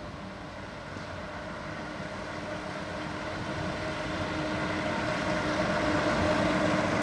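A bus driving up the road toward the listener, its engine hum growing steadily louder as it approaches.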